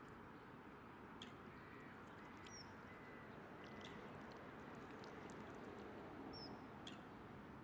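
Faint outdoor ambience: a steady low background hiss with a few faint, short bird chirps, two of them about two and a half and six seconds in, and some faint ticks.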